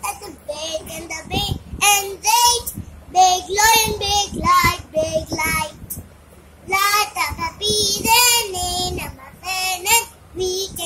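A young child singing in a high voice, in short phrases with brief pauses between them; the singing drops away for a moment about halfway through.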